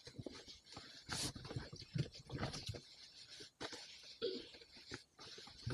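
A dog moving about on its bed in a car, making irregular rustles and soft knocks.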